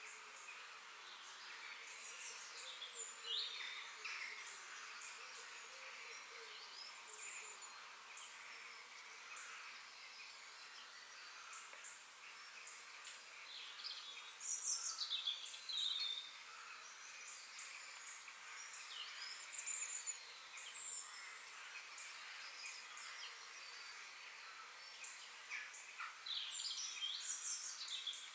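Songbirds chirping and calling in short sweeping phrases, loudest about halfway through and near the end, over a steady high hiss of insects.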